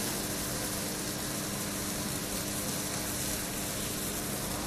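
Fish fillets frying in oil in a hot pan, sizzling steadily just after being turned, with a faint steady low hum underneath.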